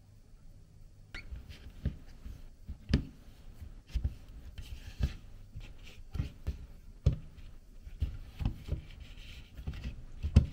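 Wooden spatula mixing flour into mashed pumpkin for gnocchi dough in a clear bowl: irregular dull thuds as it presses and knocks the dough against the bowl, with scraping between, starting about a second in.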